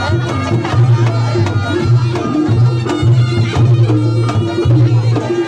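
Live Reog Ponorogo gamelan accompaniment: kendang hand drums keep a steady beat of deep strokes, about two a second. A repeated metallic mid note and a reedy slompret shawm line sound above the drums.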